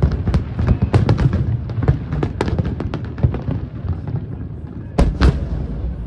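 Aerial fireworks shells bursting in quick succession, a dense run of bangs and crackles that thins out briefly past the middle, then two heavy booms close together near the end.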